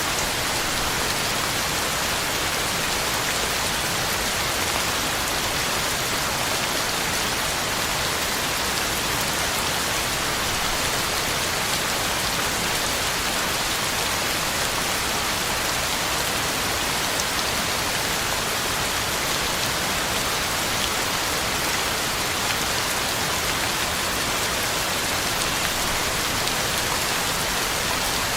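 Heavy rain falling steadily, a constant even hiss of drops hitting the ground and leaves.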